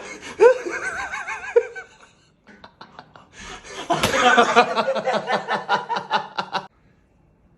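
People laughing in two bursts: wavering laughter in the first two seconds, then a longer run of rapid, pulsing laughter that cuts off suddenly near the end. A brief sharp burst comes about four seconds in.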